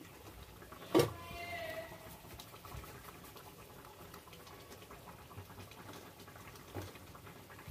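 Quiet kitchen handling sounds: one sharp knock about a second in, followed by a brief falling tone, then a faint steady background with a lighter knock near the end.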